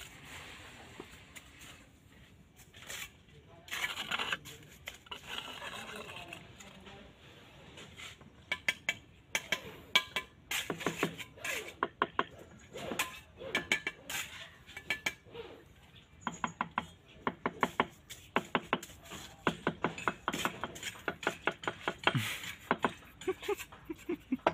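Butt of a wooden trowel handle tapping ceramic tiles down into wet mortar, a long run of quick, sharp knocks that grows busier about a third of the way in; the tapping beds the tiles level.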